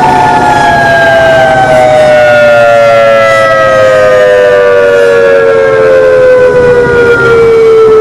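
EOWS 612 electronic outdoor warning siren, its six horns rotating, sounding a loud two-note chord that glides slowly and steadily down in pitch.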